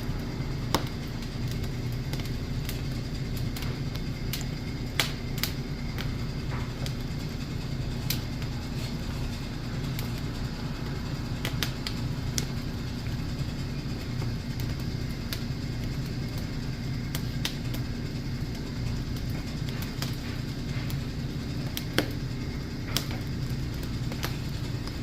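Oak-wood fire crackling under grilling chicken, with scattered sharp pops over a steady low rumble.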